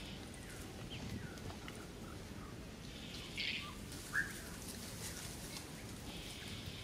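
A few short, high animal chirps and squeaks over a steady outdoor background, the sharpest one a little past the middle, with a brief hissy burst just before it.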